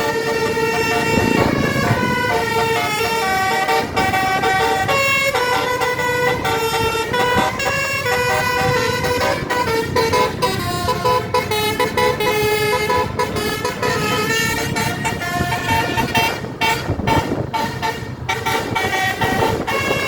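Bus telolet horn, a Basuri multi-tone air horn, playing a melody of stepped notes that change every fraction of a second, over a steady rumble.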